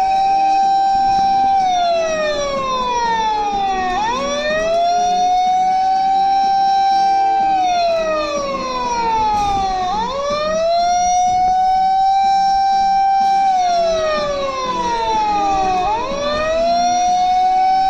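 Vehicle siren wailing in slow cycles: the pitch rises quickly, holds for a couple of seconds, then slides down over about two seconds, repeating about every six seconds.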